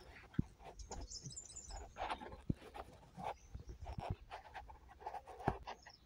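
Faint panting breaths close to the microphone, with a few sharp soft knocks and a short high chirping about a second in.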